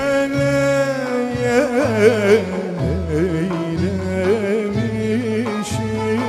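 Turkish folk music in the Rumeli style: a lead melody holds one long note for about a second and a half, then moves in quick ornamented turns over steady bass notes.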